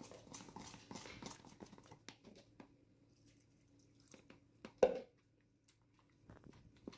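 Fork stirring a wet flour-and-water poolish in a plastic jug: quick, irregular clicks and scrapes of the fork against the plastic. There is one louder knock about two-thirds of the way through.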